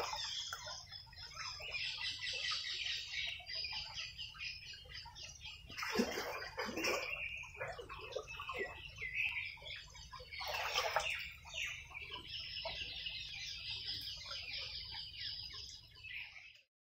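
Birds chirping and calling throughout, with two louder, lower calls about six and eleven seconds in. The sound cuts off suddenly near the end.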